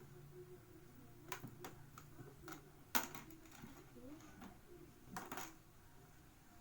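Light clicks and taps of small objects being picked up and handled, with one louder tap about three seconds in and a short cluster near the end, over faint murmuring voices.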